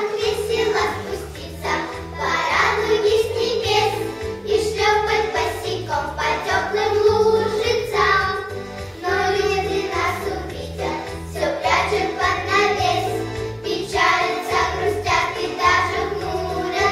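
A child singing a children's song over an instrumental accompaniment.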